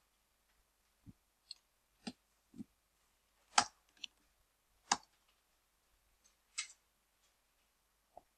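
Scattered clicks of a computer keyboard and mouse, about ten in all, with two louder keystrokes about three and a half and five seconds in.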